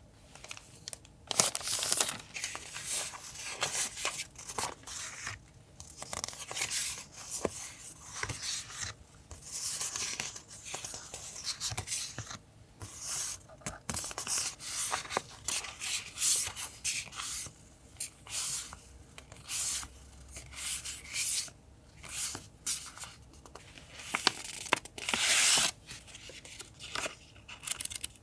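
Paper stationery and packaging being handled close to the microphone: repeated stop-start rustling and tearing of paper, with a few light clicks.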